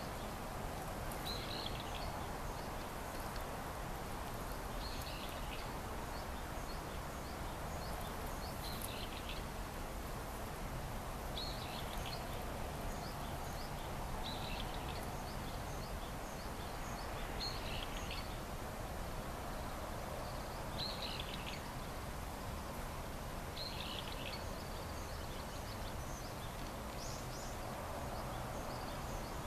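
Outdoor ambience: steady background noise, with a bird calling briefly every few seconds.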